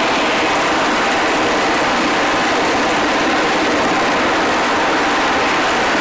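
MH-60 Sea Hawk helicopter running on the deck with its rotors turning: the turbine engines and rotor make a steady, even rushing noise with no change in level.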